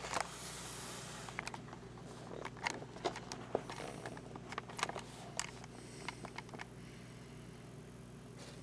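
Scattered light clicks and taps, irregular and dying away about two seconds before the end, over a steady low hum.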